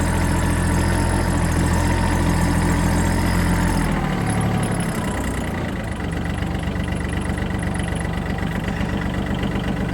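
Tractor engine running steadily, its note changing about four seconds in.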